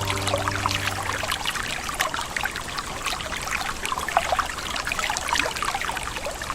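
Forest river babbling and trickling, a steady wash of water with many small splashes. Held music notes die away about a second in.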